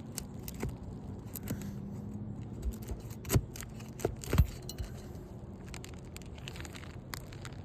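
A hand tool scraping and knocking against asphalt roof shingles as the last rusted nail is worked loose, with scattered clicks and two louder knocks about three and a half and four and a half seconds in.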